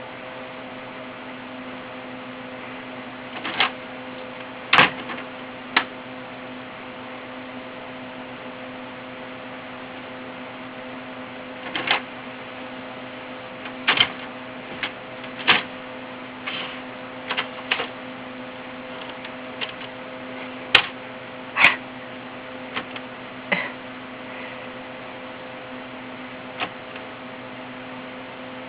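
About sixteen sharp clicks and light taps at irregular intervals, over a steady electrical hum.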